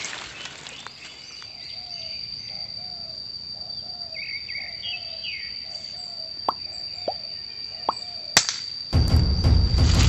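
Forest ambience of bird calls and a steady, high insect whine, broken about eight seconds in by a single sharp pop of an air rifle shot. A loud rush of noise follows to the end.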